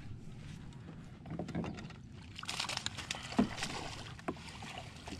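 A hooked bass thrashing and splashing at the water's surface right beside a kayak. The sharp splashes and sprays build in the second half, loudest about three and a half seconds in.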